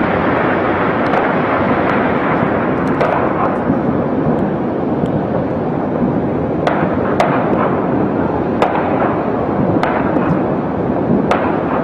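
A high-rise building fully ablaze: a steady rushing roar with sharp cracks and pops every second or so.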